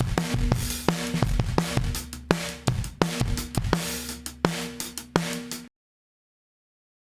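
Drum kit recording played as an audio sample of the Toneloc Level-Loc compressor: kick, snare, hi-hat and cymbal hits in a steady beat. It cuts off abruptly about two-thirds of the way through, followed by silence.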